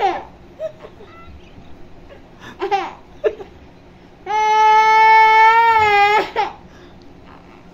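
A young girl crying into a cloth: a few short sobs, then one long, steady wail of about two seconds starting about four seconds in, then a last short sob.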